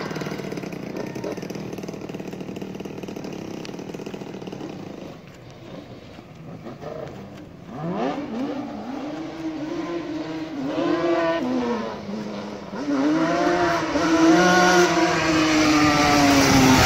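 Yamaha Banshee 350 quads with twin-cylinder two-stroke engines and aftermarket FMF and Pro Circuit exhausts, first fading into the distance, then revving up and down repeatedly as they ride back. The engines grow loudest near the end as a quad passes close.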